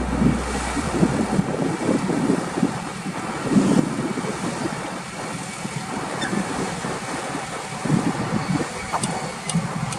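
Shantui bulldozer's diesel engine running as it works, with wind buffeting the microphone.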